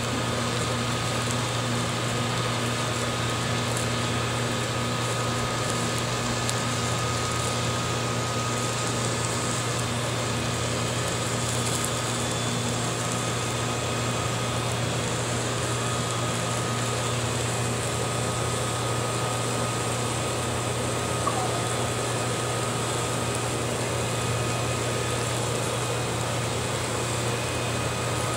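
Steady low mechanical hum of a running motor, unchanging throughout, with a thin steady whine above it.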